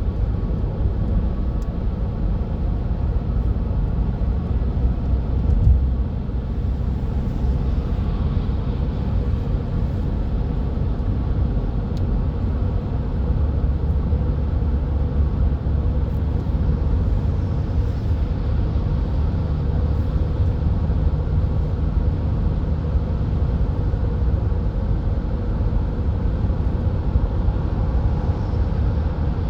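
Steady motorway traffic noise: a continuous low rumble of tyres and engines at speed, with no siren audible.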